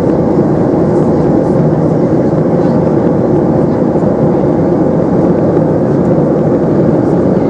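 Steady cabin noise of a Boeing 737-300 in cruise: a constant drone of its CFM56-3 turbofan engines and the airflow past the fuselage, heard from inside the cabin, with no change in pitch or level.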